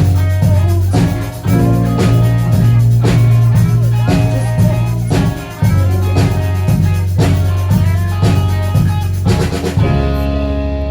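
Live rock band playing an instrumental passage on drum kit, bass guitar and guitar, with a steady drum beat. Near the end the drums stop and a final chord is left ringing.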